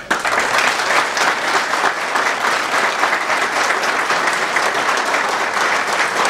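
Audience applauding: steady, dense clapping from a roomful of people that starts right after a greeting and keeps on at an even level.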